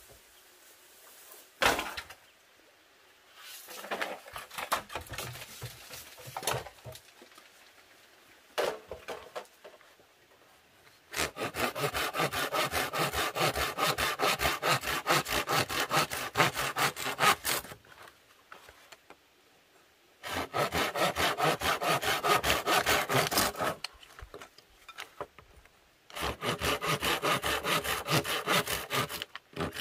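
Fine-toothed hand saw cutting through a bamboo pole laid across a log, in quick back-and-forth strokes in three bouts, the first starting about eleven seconds in, with short pauses between them. Before the sawing there is a single sharp knock and some scattered rustling.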